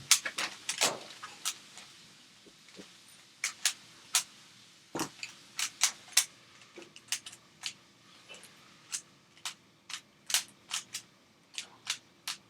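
3x3 Rubik's cube being twisted fast by hand: sharp, irregular plastic clicks as the layers turn, some in quick runs, others spaced out with short pauses.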